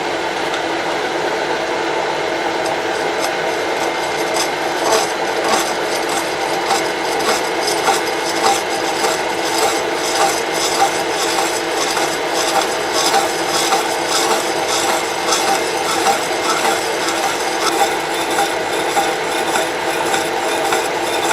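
Milling machine running a saw blade through a small workpiece held in a holder: a steady machine hum with a fast, uneven rasping tick of the teeth cutting, denser from a few seconds in.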